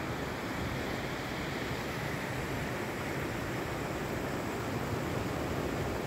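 Steady rushing of river water running high and fast after rain, an even noise with no breaks.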